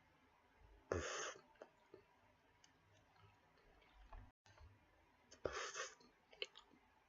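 Quiet close-up mouth sounds: scattered small clicks, with two short breathy puffs of air, one about a second in and one near the end.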